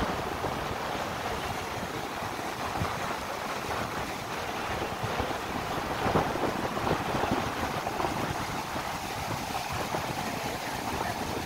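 Sea surf: waves breaking and foam washing up over wet sand in a steady wash of noise that swells briefly about six seconds in, with wind buffeting the microphone.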